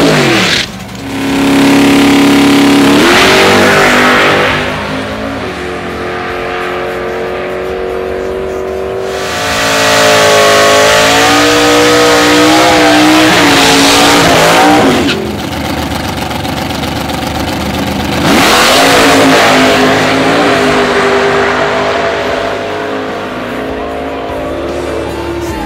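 Drag cars, a supercharged Chevy pickup and a Chevy Nova, doing burnouts and launching: engines revving hard with tyres spinning, in three very loud stretches with the pitch climbing and falling, and quieter engine running in between.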